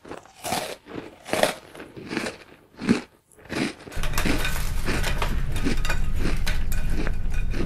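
Crunchy cookies being bitten into and broken apart by hand: a string of separate sharp crunches, then from about four seconds in a steady low hum under continuous fine crackling of crumbs.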